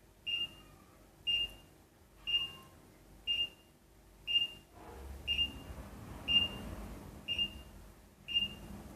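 Egg incubator controller's alarm buzzer beeping, one short high beep about every second, warning that humidity inside the incubator has fallen below its setting. A faint steady hiss comes in about halfway through.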